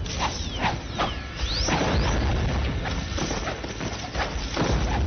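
A busy run of clattering knocks and swishes over a steady low rumble, the sound effects of a staged fight scene.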